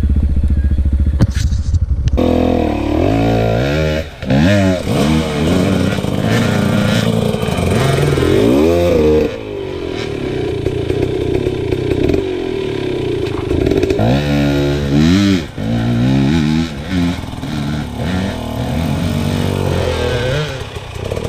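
Off-road motorcycle engine being ridden hard, its revs climbing and dropping repeatedly as the throttle is opened and shut, with a sudden break about two seconds in.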